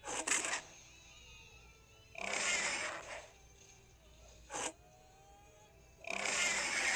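Baryonyx dinosaur sound effects: a series of breathy, rasping calls, a short one at the start, a longer one about two seconds in, a very brief one past four seconds, and another long one near the end.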